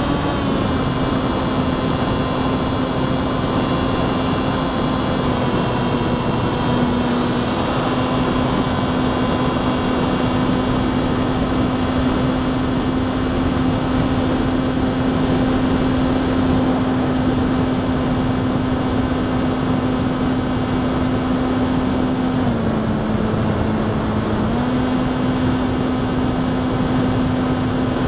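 Electric motor and propeller of a small FPV model plane running at steady cruise throttle, a constant buzzing hum. The pitch drops for about two seconds near the end as the throttle is eased, then comes back up.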